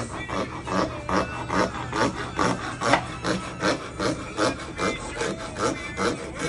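Hand file rasping back and forth on a metal ring, in even strokes about two and a half a second.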